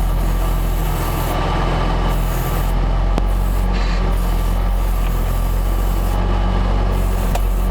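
Tucker Sno-Cat's engine running steadily under load as it climbs in deep snow, heard from inside the cab, over a rough scraping noise from the snow being pushed ahead of the blade. A single sharp click about three seconds in.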